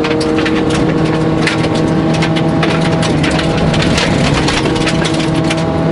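Rally car's engine running hard at fairly steady revs, heard from inside the cabin, with gravel and stones pattering and clicking against the underbody as it drives on a gravel road.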